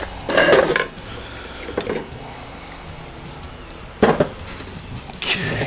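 Metal transmission parts clanking and knocking as the center support and other internals of a Ford 5R110W automatic transmission are worked loose and handled. There are a few separate clanks: a sharp knock about four seconds in and a ringing metallic clank near the end.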